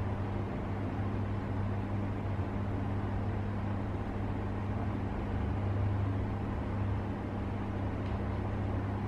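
Steady low hum over a constant background hiss, unchanging throughout, with no other events.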